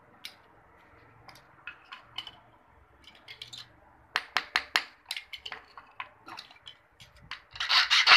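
A run of sharp clicks and taps from handling small metal parts, then about seven and a half seconds in a flat hand file starts rasping in quick strokes across a key blank, the loudest sound, as the blank is cut to fit a padlock.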